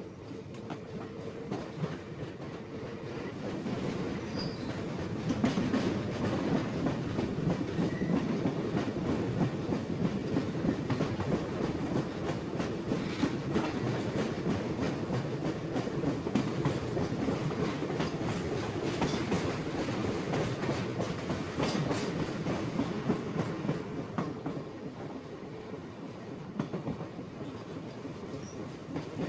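Iron ore train running on the rails, with a dense rumble and many sharp clanks and rattles from the wagons. It grows louder over the first five seconds and eases off near the end.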